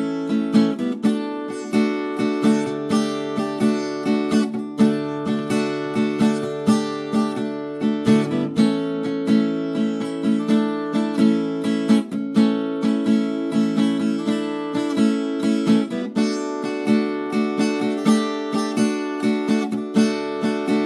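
Background music: acoustic guitar strumming at a steady pace, about two strokes a second.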